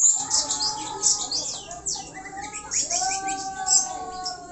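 Small birds chirping busily, many short high chirps overlapping one another.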